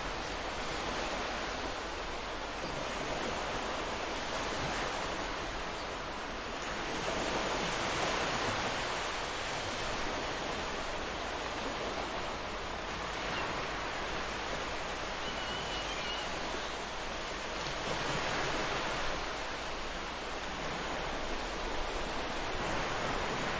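Ocean surf breaking on a beach: a steady wash of waves that swells louder twice, about a third of the way in and again past the middle.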